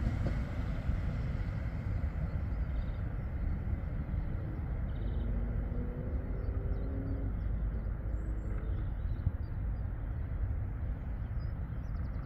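Tram running with a steady low rumble, with a faint hum coming and going about halfway through. Small bird chirps can be heard faintly over it.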